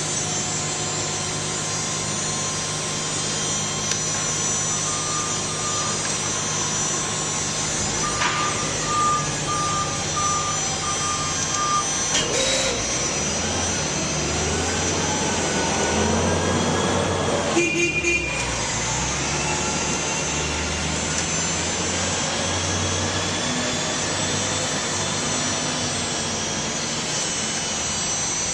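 Steady hum of baler-room machinery, with a run of short, high beeps about a third of the way in. Later come two sharp knocks and a motor whose pitch rises and falls.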